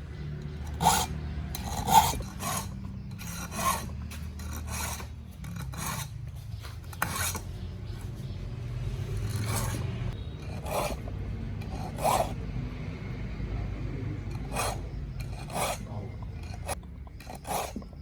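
Scraping strokes of hand filing, irregularly spaced, over a low steady hum.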